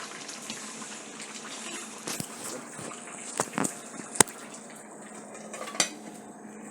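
Steady rushing of running water, with a few sharp clicks and knocks over it, the loudest about four seconds in.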